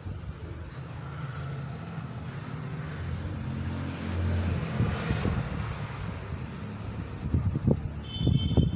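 Low rumble of a passing vehicle, swelling to a peak about five seconds in and fading, with uneven low thumps near the end.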